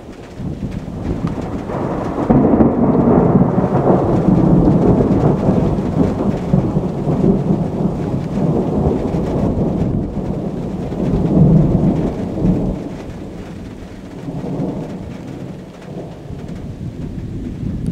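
A long rolling peal of thunder. It builds over the first couple of seconds and is loudest for a few seconds after that. It rumbles on with a second swell around the middle, then dies away with a last smaller roll near the end.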